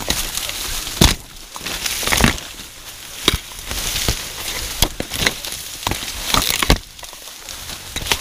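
Dry vegetation crackling and rustling as someone pushes through dense brush, with sharp snaps of breaking stalks every second or so.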